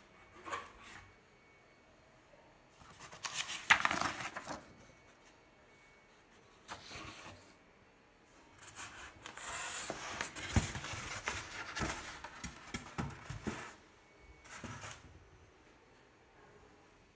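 Cardboard box and paper packing being handled and opened: several bursts of rubbing and rustling, the longest running for about five seconds from just past the middle, with a few light knocks in it.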